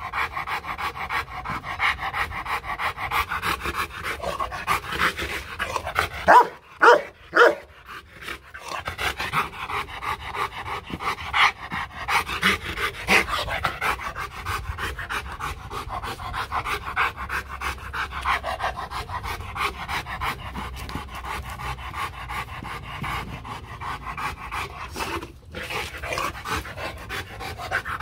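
Rottweiler panting hard and fast, with three loud, short barks about six to seven seconds in.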